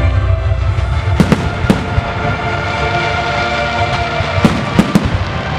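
Fireworks display: aerial shells bursting with sharp bangs, three a little over a second in and three more near the end, over music playing for the show.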